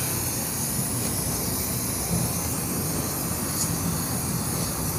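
Aerosol chain lube spraying onto a motorcycle's drive chain in a continuous steady hiss.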